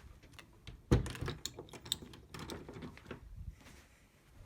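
Hands handling the parts of a door lock installation jig kit: a run of light clicks and taps, with one louder knock about a second in, then fading to a few ticks.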